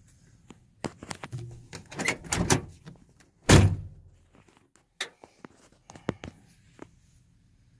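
A run of irregular knocks and thuds, the loudest a single heavy thump about three and a half seconds in, followed by a few sharp clicks; no engine running.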